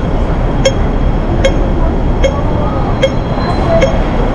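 Pedestrian crossing audible signal beeping slowly, five short pitched beeps evenly spaced a little under a second apart, the slow rate that marks the red 'don't walk' phase. Steady traffic rumble runs underneath.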